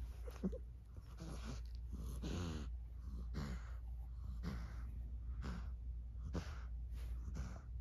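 A cat breathing in short, noisy snorting gasps about once a second, one of them a longer wheezy gasp about two seconds in, as it convulses after an epileptic seizure.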